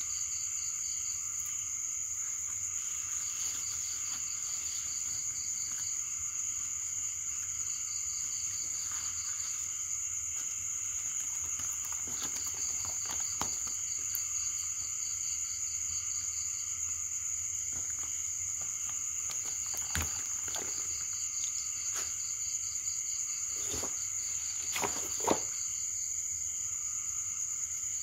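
Night chorus of frogs and insects: a steady high insect trill with rapid pulsed calls repeating in runs of a second or two. A few faint clicks and one sharper knock near the end come through it.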